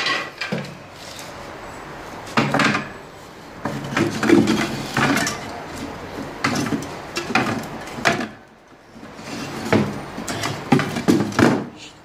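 Wooden hive slats knocking and clattering against each other and the hive box as they are handled and set in place, in irregular knocks with a short lull about two-thirds of the way through.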